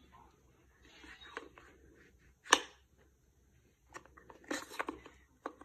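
Wooden peg puzzle pieces knocking and scraping against the puzzle board as a small child tries to fit a piece in: scattered sharp clicks, the loudest about two and a half seconds in and a quick cluster near the end, with light rustling between.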